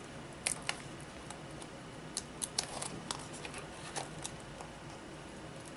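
Light, scattered clicks and taps of hands handling a laptop's replacement LCD screen panel and its display ribbon-cable connector.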